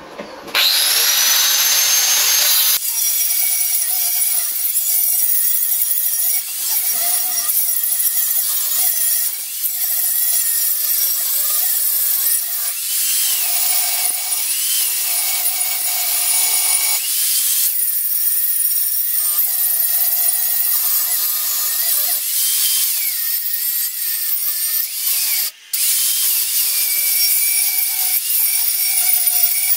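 Small angle grinder spinning up with a rising whine, then cutting steadily through very thick metal on a worn half cutting disc. The grinding drops out briefly near the end and picks up again.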